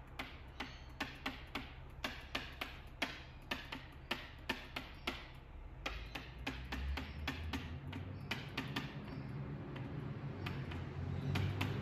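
Pen tapping and clicking against the hard surface of an interactive whiteboard as words are handwritten on it. Quick irregular taps come a few a second and thin out in the second half.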